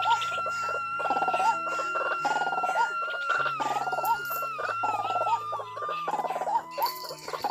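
Background music: a long held high note that wavers and falls in steps near the end, over changing bass notes, with short harsh calls repeating about every second.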